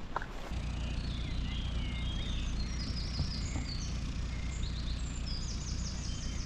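Songbirds singing and calling: several short chirps and quick trilled phrases, over a steady low rumble that comes in about half a second in.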